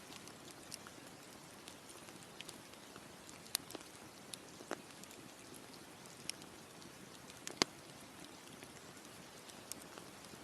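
Campfire crackling: irregular sharp pops and snaps from burning wood over a soft steady hiss, with a couple of louder pops about three and a half and seven and a half seconds in.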